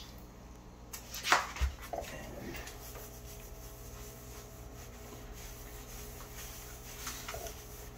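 A bulldog nosing at a bucket of grout rinse water, with a few sharp noises about a second in. After that, a damp grout sponge rubs in circles over a tiled backsplash, wiping off the grout haze.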